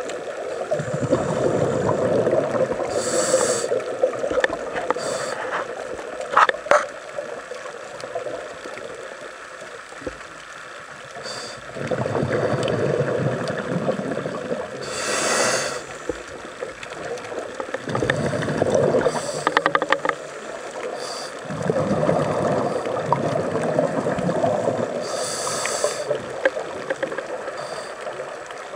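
Scuba diver breathing through a regulator underwater. Exhaled bubbles rumble and gurgle for a few seconds at a time, and a short hiss of inhalation through the demand valve comes about every ten seconds. There is one sharp click about six seconds in.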